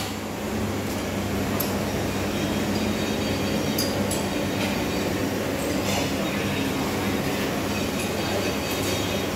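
A steady low mechanical drone, like a motor or engine running, with a few faint metallic clinks.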